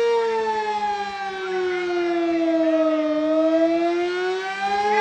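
American Signal Sentry 20V2T outdoor warning siren sounding during a test. Its steady tone slides down in pitch over about three seconds, then climbs back up to full pitch near the end.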